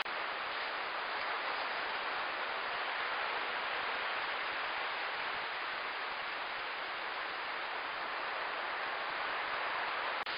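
Steady hiss of small waves washing over a flat sandy shore, with a momentary dropout near the end.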